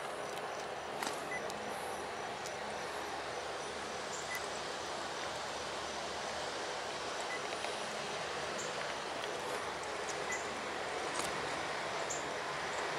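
Steady outdoor background hiss, with a few faint high chirps and light ticks over it.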